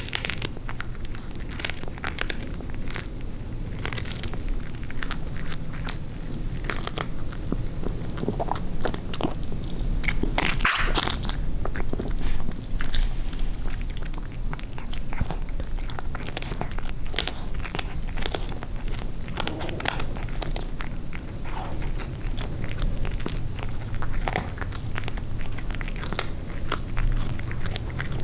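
Tabby cat chewing raw chicken neck, close up: irregular wet crunches and bites of bone and gristle. She chews lightly, as her teeth are weak.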